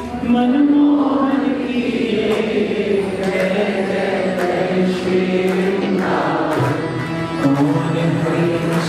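Devotional chanting of a divine name (naam jap), voices singing together in long, slowly changing held notes.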